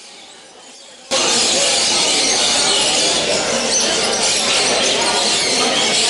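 Loud, dense din of a crowded bird-show hall, many voices mixed with the calls and screeches of caged parrots. It cuts in suddenly about a second in after a quieter stretch.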